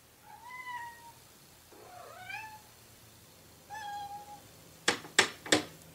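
Domestic cat giving three short, soft meows, the middle one rising in pitch, then four sharp knocks in quick succession near the end.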